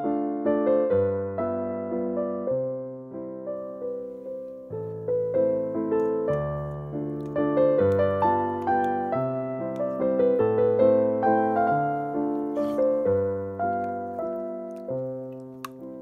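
Background piano music: a slow melody over sustained chords and a bass line, fading out near the end.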